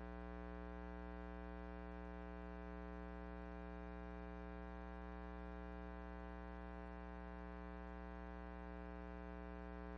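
Steady electrical hum with a buzzy stack of overtones, unchanging in pitch and level.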